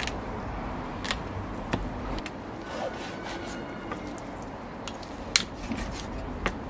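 Raw lamb being cut up and handled by hand: scattered light clicks and knocks of the blade and meat against the work surface over a low steady background, with one sharper knock about five and a half seconds in.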